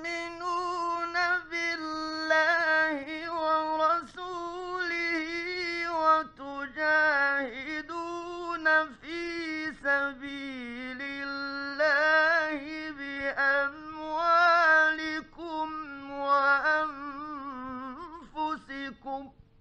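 A male Quran reciter chanting in slow, ornamented melodic phrases, his voice wavering and sliding in pitch, with short pauses between phrases. The phrase ends near the end.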